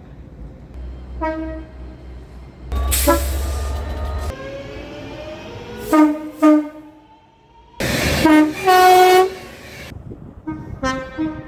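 Train horns sounding in a string of short toots and longer blasts. A long blast about three seconds in comes with a loud rush of passing train, and its pitch falls over the next few seconds. Another loud blast with rushing noise comes near eight seconds in.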